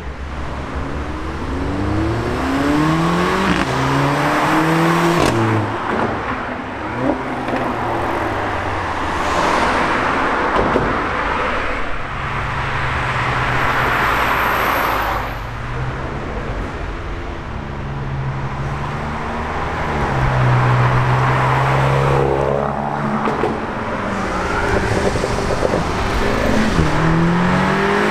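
Several hot hatchbacks accelerating hard past one after another. The engine note climbs and drops back at each gear change, mixed with exhaust noise.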